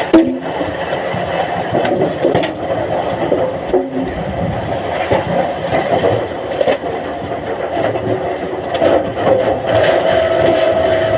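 Timber-mill machinery handling logs runs steadily with a sustained mechanical hum, with scattered sharp knocks throughout.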